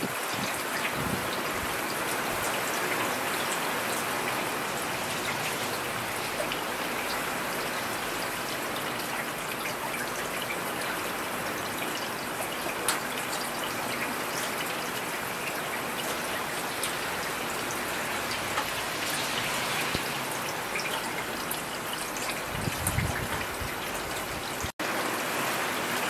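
Steady rain falling, an even hiss with scattered sharp drop ticks. A brief low rumble comes about three-quarters of the way through, and the sound cuts out for an instant near the end.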